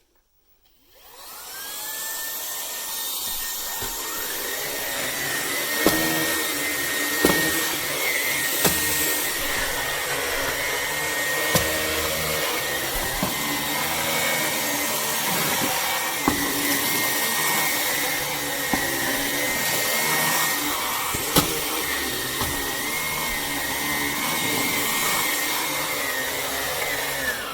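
Vax HomePro Plus cordless stick vacuum cleaner switched on, its motor whining up to speed and then running steadily, with a scattering of sharp clicks. It winds down right at the end.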